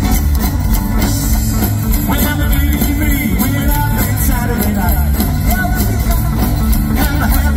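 Live rockabilly band playing: upright bass, acoustic and electric guitars and drum kit.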